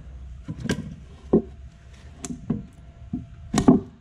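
A handful of sharp knocks and thuds as a plastic HDPE mold with a cured epoxy board inside is set down and shifted on wooden beams, the loudest near the end.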